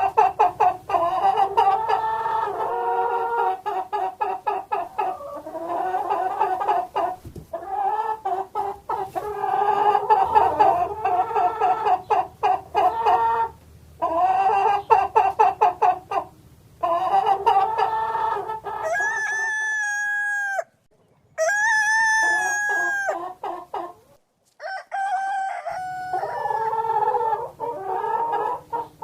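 Domestic chickens clucking in runs of short, quick calls. About two-thirds through come two long crows in a row before the clucking resumes, with a few abrupt breaks between stretches.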